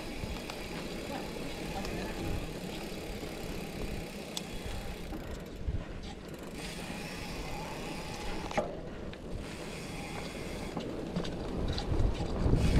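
Mountain bike rolling along a dirt forest trail: steady rumble of knobbly tyres on the ground with rattling from the bike's chain and frame and scattered clicks. It gets louder near the end.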